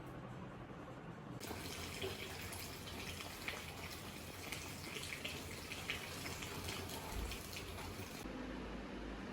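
Water running from a tap into a sink, turned on about a second and a half in and shut off near the end.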